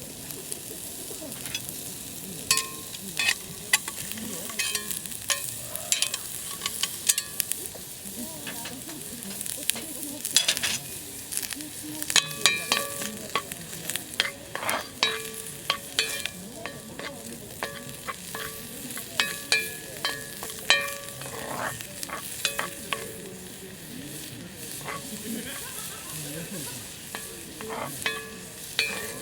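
Food sizzling and frying in a cast-iron skillet over a campfire, with frequent sharp crackles and clicks. A metal utensil stirs and taps the pan, giving short metallic rings.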